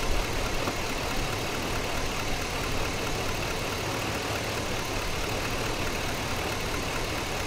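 2003 Chevy Suburban's 5.3-liter V8 idling steadily under an open hood. A broken wire at the fuel injector harness connector is being jiggled, which makes the engine misfire and run rough off and on.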